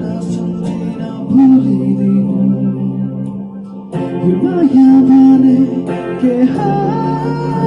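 A man singing a Nepali rock song while strumming a guitar. He holds long, wavering sung notes over steady strummed chords, sings louder about four seconds in, and climbs to a higher held note near the end.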